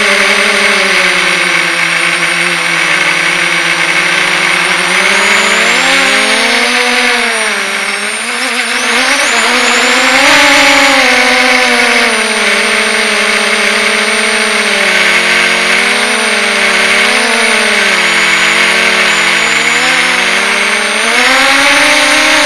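SRD 260 quadcopter's brushless motors and propellers whining, heard from a camera mounted on the drone. The pitch rises and falls continually with the throttle, with surges about 10 seconds in and near the end.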